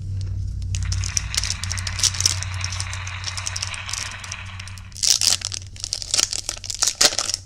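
Foil wrapper of a baseball-card pack crinkling as it is handled, then torn open, with a run of louder, sharp crackles from about five seconds in.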